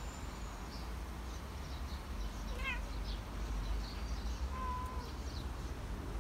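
A cat gives a short meow about two and a half seconds in, with small birds chirping faintly and a low steady outdoor rumble underneath.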